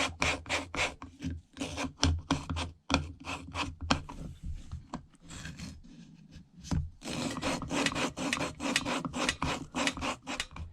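Intake valve of a 1970 Honda Z50 cylinder head being hand-lapped against its seat with grinding compound, a screwdriver twisting it back and forth in fast scraping strokes, about five a second. The strokes ease off for a few seconds in the middle, then pick up again.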